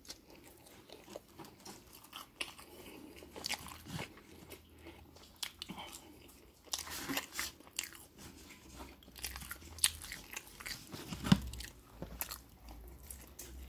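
A person chewing and biting into pepperoni pizza, with irregular crisp crunches and clicks, the loudest about eleven seconds in.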